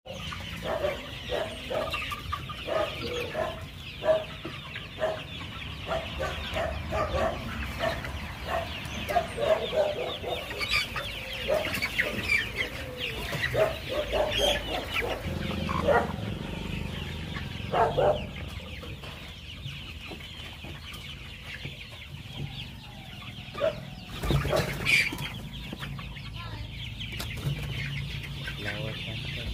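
A flock of young Kaveri country chickens clucking and calling, many birds overlapping. The calling is busiest in the first half and thins out later, with a few louder single calls.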